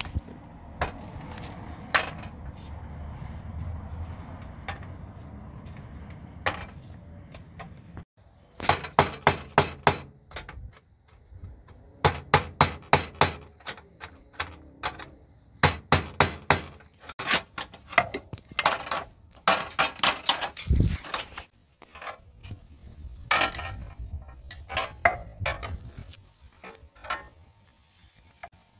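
Bursts of rapid metallic knocks and clanks, several a second, with pauses between the bursts. A low steady rumble underlies the first third.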